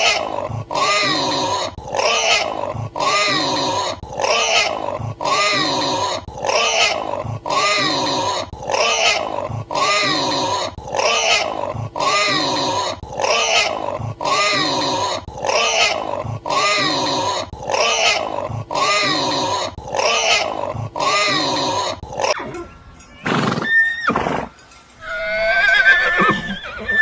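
A pig squeals over and over in short, arched squeals at a very even pace, about one every 0.8 seconds. Near the end the squeals stop and a horse begins to neigh.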